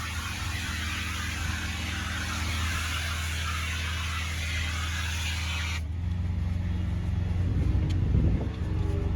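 Pressure washer's engine running steadily while the spray lance hisses; the spray cuts off sharply about six seconds in as the trigger is released, leaving the engine running alone.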